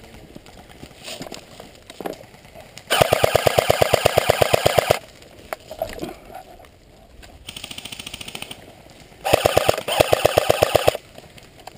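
Airsoft gun firing two long full-auto bursts of about two seconds each, rapid evenly spaced shots, with a fainter full-auto burst from another gun between them.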